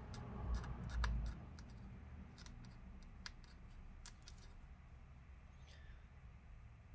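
Old battery adhesive strip being peeled slowly off the inside of a MacBook Pro case, giving faint scattered ticks and clicks, with a couple of soft low bumps from handling in the first second or so.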